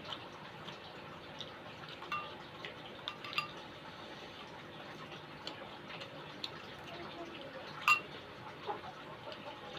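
A spoon clinking against a bowl several times while eating soup, with small clicks in between; one ringing clink, about eight seconds in, is much the loudest.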